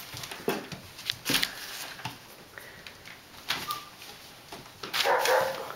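Young briard puppies whimpering and yipping while scuffling on newspaper, with scattered short scuffs and paper rustles and a louder burst of noise about five seconds in.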